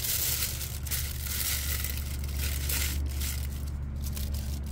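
Aluminium foil being pulled away and crumpled by hand. It crinkles densely for about three seconds, then dies down, over a steady low hum.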